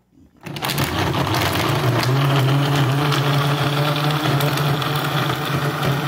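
A 30-year-old Arno countertop blender switched on about half a second in, its motor coming up to speed and then running steadily as it blends limes with sugar and ice.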